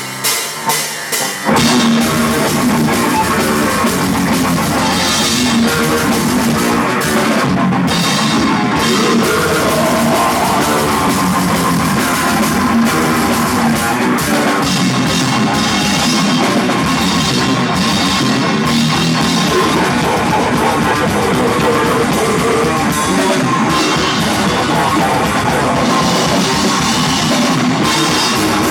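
Metal band playing live at full volume, with pounding drums and distorted electric guitars. A few separate drum hits open it, then the full band comes in about a second and a half in and plays on without a break.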